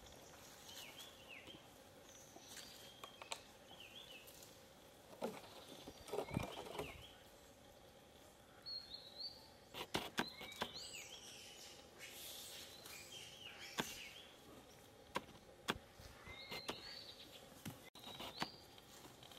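Faint outdoor ambience with many short, high chirps and squeaks scattered throughout, a few sharp clicks, and a brief rustling burst about six seconds in.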